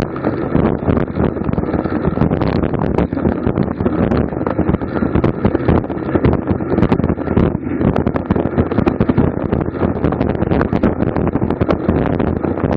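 Wind buffeting the microphone of a bicycle-mounted camera at race speed: a loud, steady rush with constant crackling.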